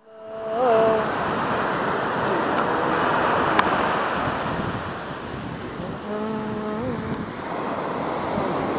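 Sea surf breaking and washing up a sandy shore, a steady rush of waves. A short held tone sounds twice, near the start and about six seconds in, and there is a single sharp click in the middle.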